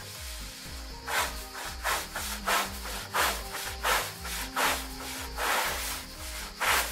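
Repeated rubbing strokes on wooden boards, about one or two a second, each a short rasping sweep, over background music with a steady beat.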